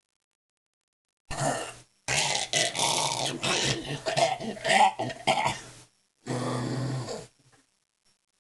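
A person making strange throaty vocal noises. A short rasp comes about a second in, then a longer run of rough, gravelly sounds, and near the end one steadier low held sound.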